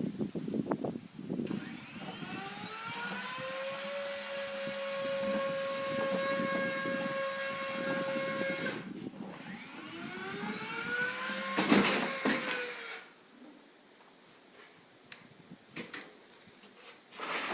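An electric power tool's motor spinning up with a rising whine, running steadily for about five seconds and stopping suddenly, then spinning up again and winding down, with a loud clatter as it dies away.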